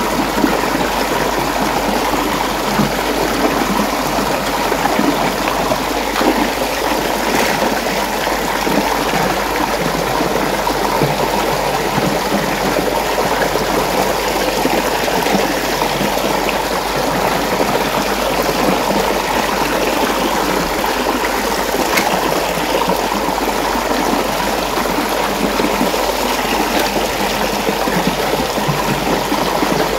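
Water rushing and churning steadily in a whirlpool, with a few faint light knocks now and then.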